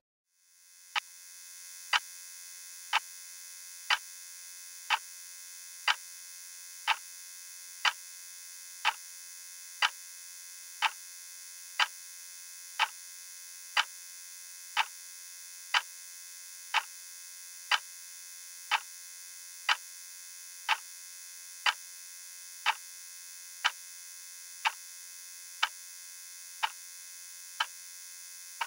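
A steady electric buzz or hum that fades in over the first couple of seconds, with a sharp, evenly spaced tick about once a second, like a clock, above it.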